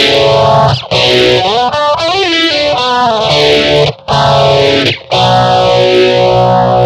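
Distorted electric guitar, a Squier Telecaster, playing chords and notes through a Maestro Orbit Phaser, with the phaser's sweep rising and falling repeatedly. The playing comes in phrases with a few short breaks between them.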